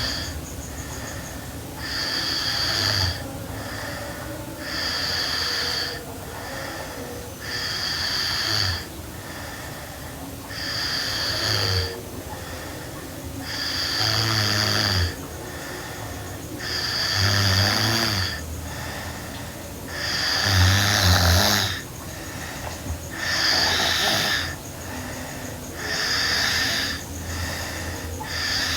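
A sleeping girl snoring in a steady rhythm, about one raspy snore every three seconds, with quieter breathing in between.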